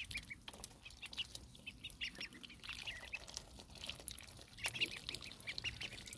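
A flock of domestic ducklings peeping, many short high calls overlapping, while they dabble their bills in a basin of water with small splashes and clicks.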